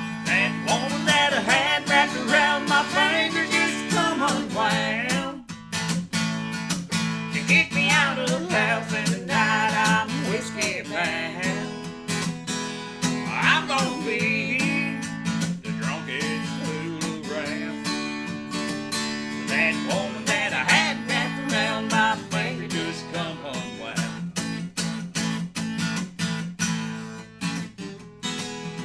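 Country music on a strummed acoustic guitar, with a wavering, bending melody line above the chords.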